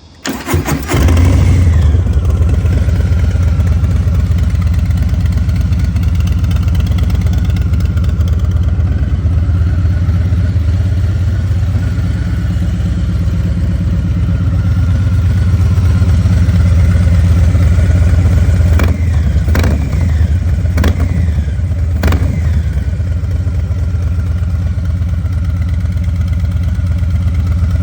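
2024 Harley-Davidson Low Rider S's Milwaukee-Eight 117 V-twin, breathing through a TBR short turnout stainless exhaust with a stage 1 tune, starts with a brief flare and settles into a loping idle. It is blipped three times in quick succession about two-thirds of the way through.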